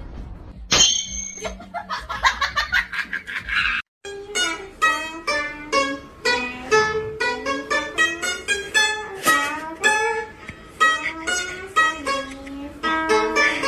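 Background music of plucked strings playing a quick, bouncy tune of short notes. It starts after a sudden cut about four seconds in; before the cut there is a brief, unclear high-pitched sound.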